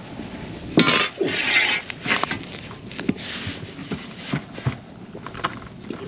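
Gear being handled on a boat: a loud scraping rustle about a second in, then scattered sharp knocks and clicks.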